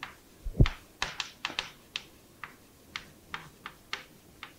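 Chalk writing on a chalkboard: an irregular run of short taps and scratches, about four a second, with a dull thump about half a second in.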